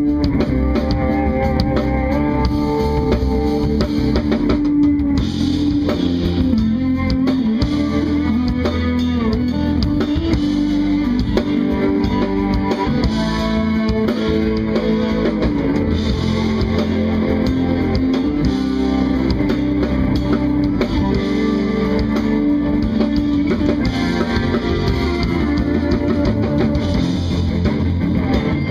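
Live band playing an instrumental jazz-fusion tune: electric guitar over bass and drum kit, continuous and steady in level.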